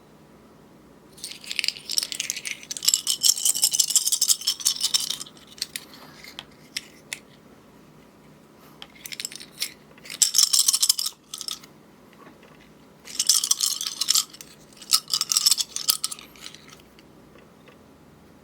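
Keyboard packaging and parts being handled during unboxing: three spells of crisp crinkling and light rattling, the first and longest about a second in, the others near the middle and toward the end.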